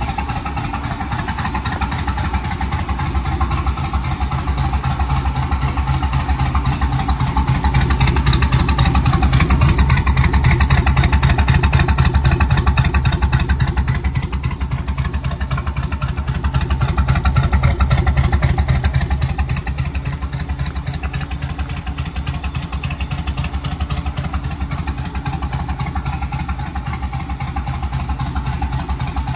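Turbocharged V8 swap with an aftermarket camshaft running at idle through short open exhaust pipes, a loud steady rapid pulse. It swells a little louder about eight seconds in and again near eighteen seconds.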